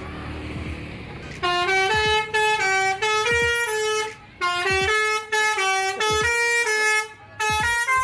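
A bus's telolet musical air horn playing a quick tune of short notes that keep changing pitch. It starts about a second and a half in and stops briefly twice, about four and seven seconds in.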